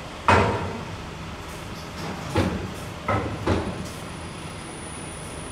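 Four sudden knocks over a steady background noise: the loudest comes just after the start, and three quieter ones follow close together in the middle.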